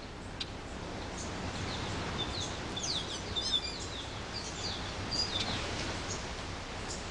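Outdoor ambience of birds chirping: scattered short chirps with a quick run of notes about three and a half seconds in, over a steady background hiss.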